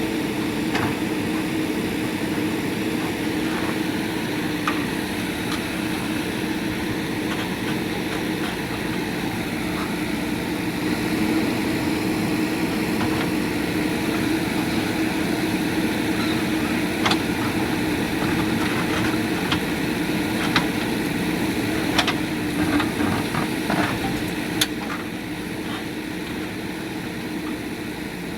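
JCB 3DX backhoe loader's diesel engine running steadily, with scattered sharp knocks and clanks, most of them in the second half, as the bucket works old concrete.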